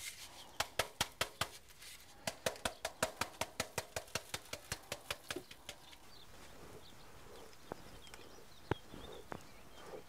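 A wooden seed sieve being tapped rapidly while cauliflower seed is sifted out of it, about five sharp knocks a second in two runs, then a few single knocks.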